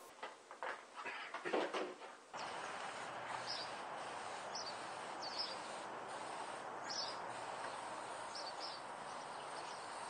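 Thin steel drip-edge flashing strips rattling and knocking as they are set down onto the pipe collector, in a quick cluster of sharp clatters for about two seconds. Then a steady outdoor background hiss with short bird chirps several times.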